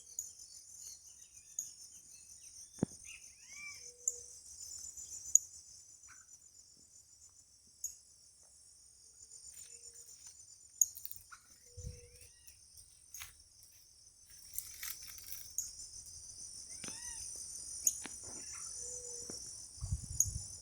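Steady, high-pitched pulsing chorus of insects such as crickets, with short bird chirps now and then and a few brief clicks and low thumps.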